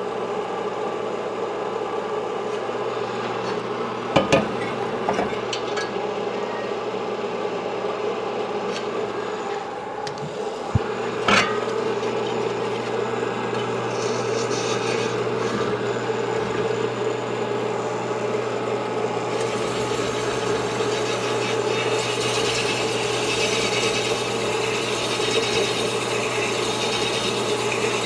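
Sunnen honing machine running steadily while a motorcycle cylinder is stroked back and forth over the spinning hone, its 280-grit stones rasping against the cast-iron bore; a few sharp knocks come early on, and the scratchy rasp grows louder about two-thirds of the way through.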